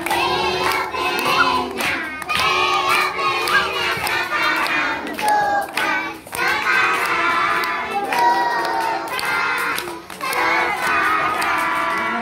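A group of children and women singing together, with hands clapping along.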